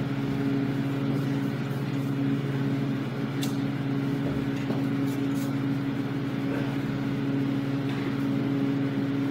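Steady machine hum with several fixed low tones, unchanging throughout, with a few faint ticks around the middle.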